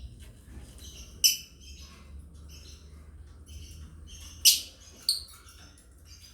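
Lovebirds chirping: a run of short, high chirps, with three sharp, louder calls, one about a second in and two close together later on, over a faint low hum.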